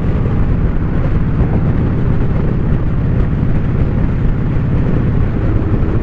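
Harley-Davidson V-twin engine running steadily while the motorcycle is under way, mixed with wind and road noise on the microphone.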